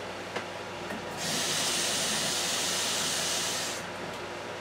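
Water running from a kitchen tap into a measuring cup: a steady hiss that starts about a second in and shuts off about two and a half seconds later.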